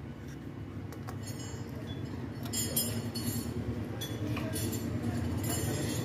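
Light metallic clinks and taps, a handful scattered through a few seconds, as the oil filter and its metal cover with a new gasket are handled and seated into the filter housing on a Jawa motorcycle's engine case. A steady low hum runs in the background.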